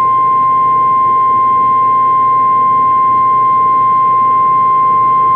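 Emergency Alert System attention tone over AM/FM radio: a single loud, steady high-pitched tone held without change. It signals that an emergency alert, here a flash flood warning, is about to be read.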